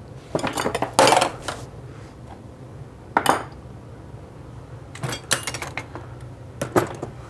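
Metal wrenches clinking and clattering as they are put down and picked up, in several short bursts of sharp clinks.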